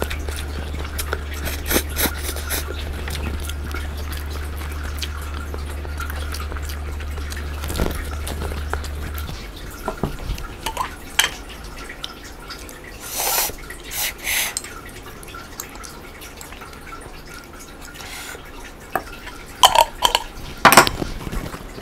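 Close-up eating sounds: instant noodles being slurped and a metal fork clinking against a ceramic bowl, with a few louder clicks near the end. A low steady hum underneath stops about nine seconds in.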